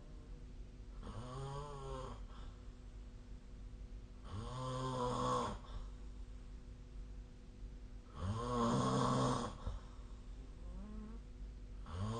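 A sleeping person snoring: three drawn-out, pitched snores about every three and a half seconds, the later two louder than the first, with another beginning at the very end.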